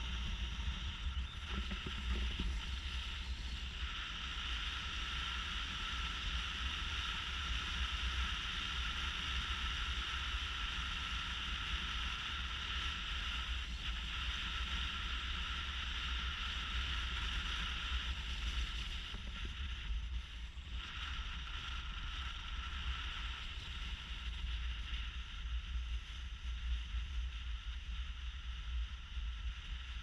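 Wind and road noise of a car driving, picked up by a camera mounted on the outside of the vehicle: a steady rushing hiss over a low rumble.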